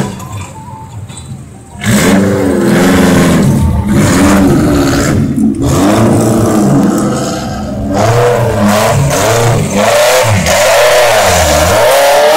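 An off-road vehicle's engine revving hard, its pitch rising and falling over and over, getting loud about two seconds in.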